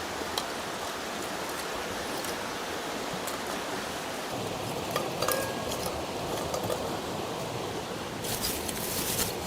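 Steady rush of running water, with scattered small clicks and clinks, a brief clatter about halfway through and a short run of ticks near the end.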